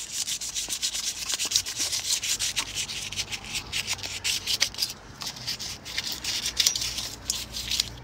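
Hand sanding of a bicycle frame's old painted finish to take off surface grime, in rapid back-and-forth rubbing strokes with a brief pause about five seconds in.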